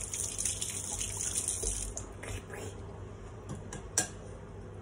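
Fork stirring home-pickled honey mushrooms dressed with oil and vinegar in a bowl: a soft hiss for the first couple of seconds, then light clicks and one sharper clink of the fork on the bowl about four seconds in.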